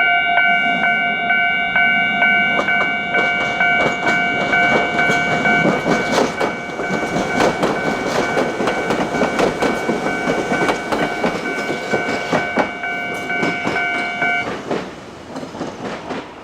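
Japanese level-crossing warning bell ringing its steady, fast 'kan-kan' while a train rolls over the crossing, its wheels clattering over the rail joints. The bell cuts off suddenly about 14 seconds in and the train fades away.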